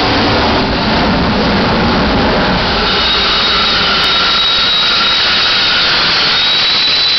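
Loud, steady hiss of propane escaping from a leaking propane delivery truck's tank. A faint high whine joins it about three seconds in.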